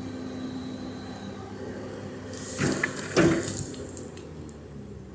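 Excavator engine running steadily, with a burst of rushing, hissing noise and a few knocks a little before halfway through as the machine works its load.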